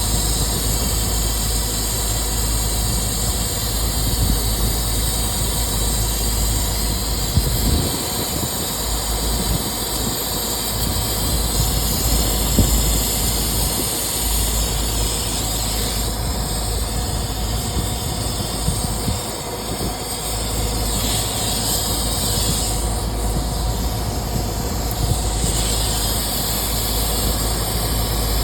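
Steady drone of running machinery, a constant low rumble with a steady hum.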